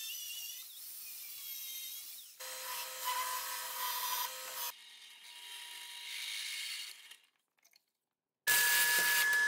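Angle grinder cutting a steel plate, then the plate's edge ground on a belt grinder, both throwing sparks. After a short silence near the end, a drill press comes on abruptly and runs loud and steady with a high whine.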